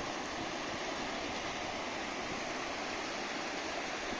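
Shallow river rapids rushing over granite rock ledges: a steady, even roar of white water.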